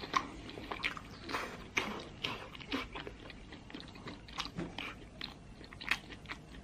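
A person chewing a soft, fatty piece of red-braised pork belly with the mouth closed: a steady run of short wet smacks and clicks.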